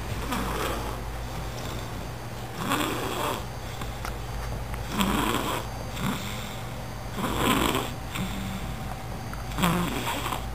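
A sleeping baby snoring: a rough snore on each breath, about every two and a half seconds, over a steady low hum.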